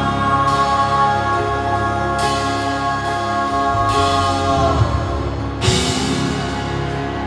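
Live country-rock band playing an instrumental passage: a held chord on acoustic guitar and keyboard over drums, with a cymbal crash about every one and a half to two seconds and a chord change about five seconds in.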